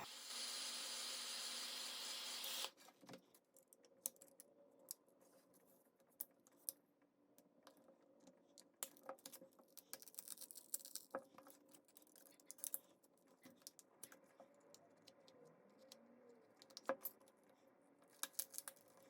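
A heat gun blows steadily and cuts off about two and a half seconds in. After that come faint, scattered clicks and scrapes as a thin steel pry tool works the glass back of a Samsung Galaxy Note 5 loose from its frame.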